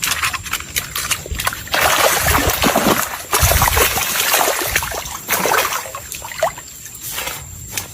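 Water splashing and sloshing in irregular bursts, loudest in the middle and easing off near the end, typical of a hooked snakehead thrashing at the surface during the fight.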